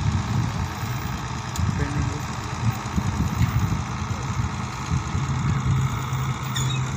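An engine idling steadily with a rapid low throb.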